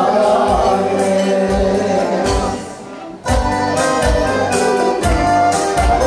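A Bulgarian folk song: voices singing together over instrumental backing. A little past two seconds in, it fades down, and about a second later music with a steady drumbeat cuts back in abruptly.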